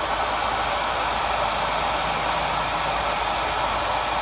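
Hair dryer blowing steadily, directed at ice built up in a refrigerator's vents to melt it.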